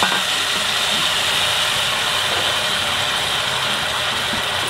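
Tamarind liquid cooking in hot sesame oil in a kadai, a steady sizzling hiss.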